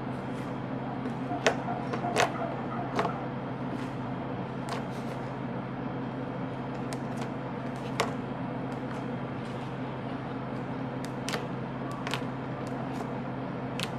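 Homemade fluffy slime being squished and handled, giving scattered sharp pops and clicks, most of them in the first few seconds, over a steady low hum.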